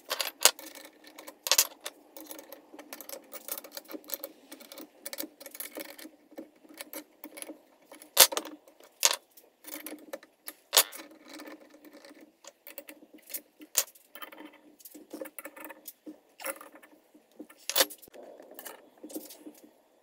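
Irregular metallic clinks and taps of a spanner and a steel bearing separator and puller being fitted and tightened around a crankcase bearing held in a vise, with a few sharper knocks among them.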